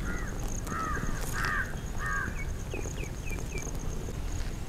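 Birds calling: a run of about five short arched calls in the first two seconds, then a few quick, higher, falling chirps, over a faint steady high-pitched whine.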